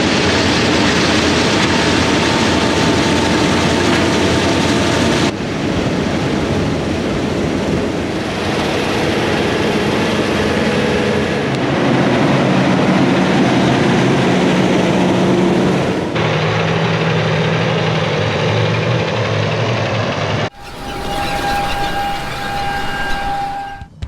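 Heavy farm machinery engines running steadily under a loud, dense noise, in several clips cut together with abrupt changes in sound.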